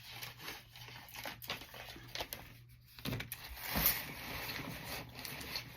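Rustling and light clicks of packaging being handled, with a louder stretch of rustling about three seconds in.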